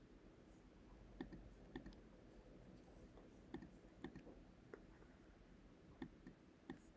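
Faint computer mouse clicks, about seven at irregular intervals, over quiet room tone.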